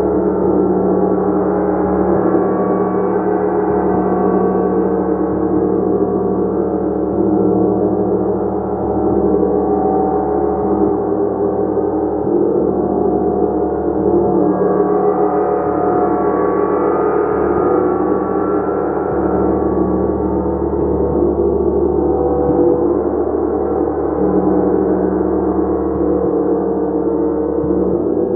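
Gong played continuously: a dense, sustained wash of many overlapping low and middle tones that swells and ebbs slightly, with no single strike standing out.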